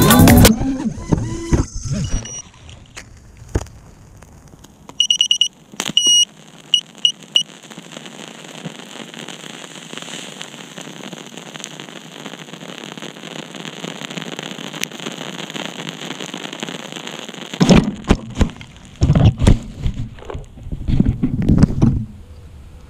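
A crashed FPV quadcopter's buzzer sounds about five seconds in, two longer beeps and then four short ones, over a steady outdoor hiss. Near the end come loud thumps and rustling as the downed quad and its camera are handled in the grass.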